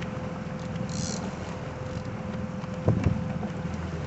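Fishing boat's motor running steadily with a low hum and a thin steady tone. A short high hiss comes about a second in, and a single thump comes about three seconds in.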